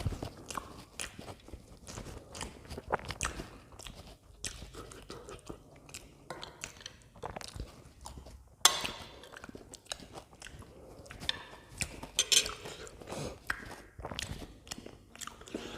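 Close-miked chewing and mouth sounds of someone eating pav bhaji, soft bread rolls with spiced vegetable mash. Irregular wet smacks and clicks, a few of them louder, about nine and twelve seconds in.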